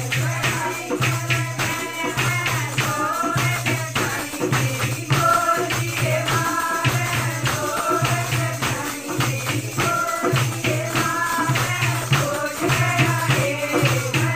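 Women singing a folk song together, with rhythmic hand claps and jingling percussion keeping a steady beat.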